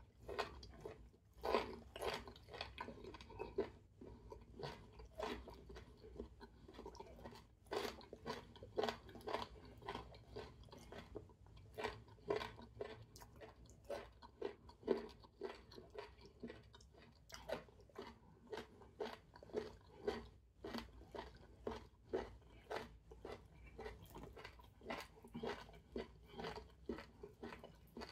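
A man chewing and biting food close to the microphone, eating goat meat and fufu with his fingers. The chewing comes as irregular short sounds, about one to three a second, with no pause.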